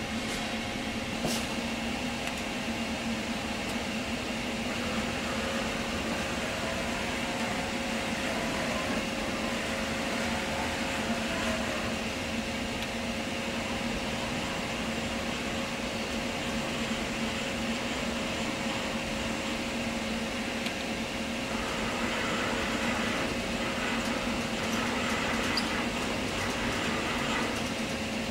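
Fadal VMC 15-XT vertical machining center running under power: a steady electrical hum with a constant tone. A faint whine rises and falls in places as the table axes are jogged from the control's handwheel.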